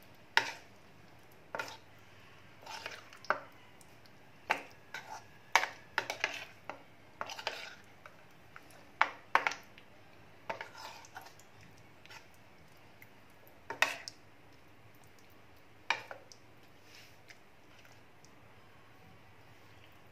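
Steel spoon stirring prawns through a thick yogurt-spice marinade in a plastic bowl: irregular clinks and scrapes of the spoon against the bowl, thinning out over the last few seconds.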